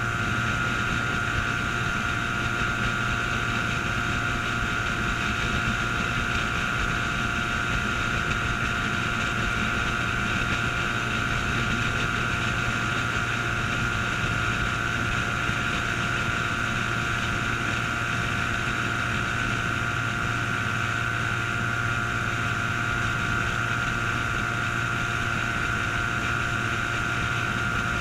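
Antique outboard motor running steadily at an even cruising speed, its drone holding one pitch with no revving or change in loudness.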